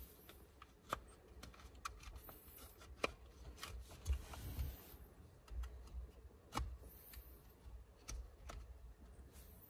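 Faint handling noise of plastic steering-column parts and wiring being worked by hand: soft rustling and knocks with a few sharp plastic clicks scattered through.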